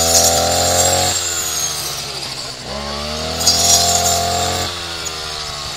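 Petrol brush cutter engine revving to full throttle and falling back to idle twice: high for about the first second, low, then up again near the three-second mark for about two seconds and back down near the end. A hissing, rustling noise rides on the high-speed stretches as the blade cuts into the bush stems.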